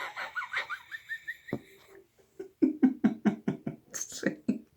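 A person laughing: a quick run of high, squeaky giggles, a brief pause, then a rhythmic 'ha-ha-ha' at about four to five laughs a second.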